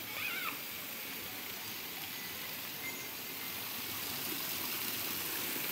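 Water pouring from a row of Muktinath's 108 temple water spouts onto the stone below: a steady rush and splash that grows a little louder near the end.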